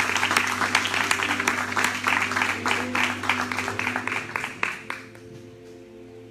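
Congregation applauding, with many hand claps, over a held keyboard chord; the applause fades out about five seconds in, leaving the sustained chord.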